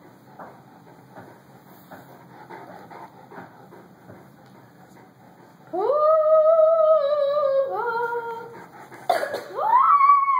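Faint rustling of a fleece blanket, then two long howls: the first is held on one pitch and steps down partway through; the second rises steeply and is still going at the end.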